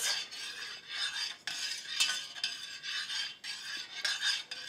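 Metal spoon stirring milky chai in a stainless-steel saucepan, scraping around the pan in uneven strokes with occasional clinks, mixing until the sugar dissolves.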